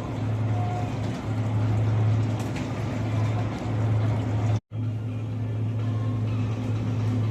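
Steady low hum over a background of noise, broken by a sudden brief dropout about four and a half seconds in.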